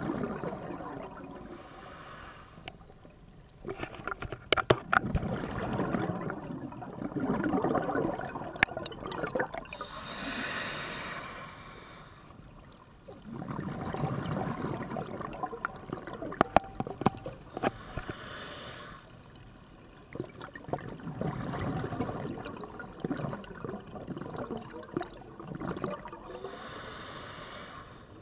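Scuba diver breathing through a regulator underwater: rushes of exhaled bubbles lasting several seconds each, separated by a short hiss of inhaled air.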